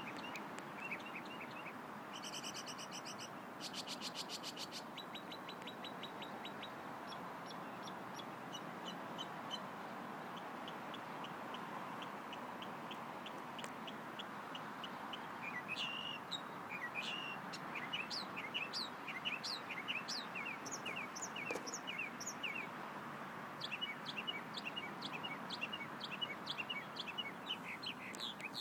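Northern mockingbird singing, running through a string of varied phrases, each a quick series of repeated notes: a buzzy phrase, a fast trill, and runs of sharp downslurred chirps.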